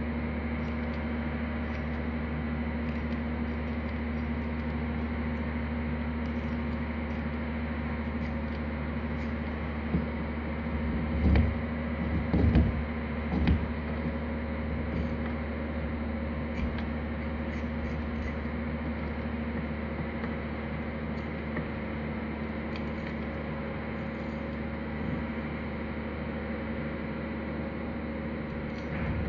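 A steady low hum runs under faint, scattered scraping ticks as a knife pares a plaster muqarnas segment. A few dull thumps come about eleven to fourteen seconds in.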